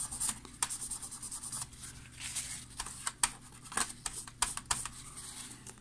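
Paper towel scrubbing quickly back and forth on the bottom cover of a Dell Latitude E6400 laptop, cleaning old glue residue from where a rubber foot sat. The strokes come thick at first, then thin out and stop.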